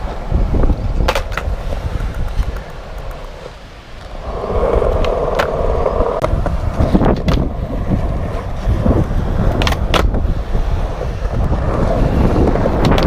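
Skateboard wheels rolling over concrete, with wind buffeting the microphone, broken by several sharp clacks of the board's tail popping and landing. About four seconds in, a louder scrape lasts nearly two seconds, like the board grinding or sliding.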